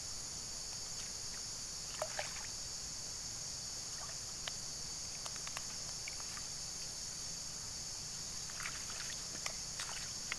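Steady high-pitched chorus of insects, with a few faint rustles and light taps from someone handling a pole in the grass about two seconds in and again near the end.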